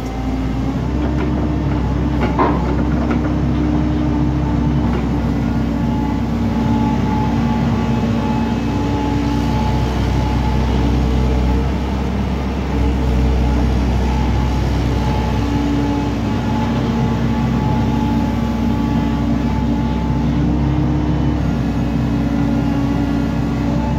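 JCB JS145W wheeled material handler's diesel engine running at raised revs with a steady hydraulic whine as the elevating cab and boom are worked; the revs step up right at the start. A short clunk about two and a half seconds in.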